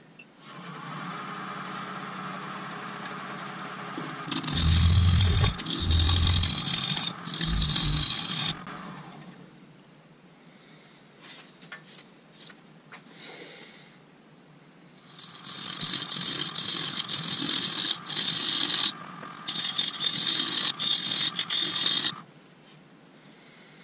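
Nova DVR Saturn wood lathe running at about 1000 RPM with a steady motor whine while a carbide tool roughs down a spinning blank of cast resin and root. The cutting comes in two long loud spells of scraping, the first, about four seconds in, with low knocks, the second from about fifteen seconds in until shortly before the end.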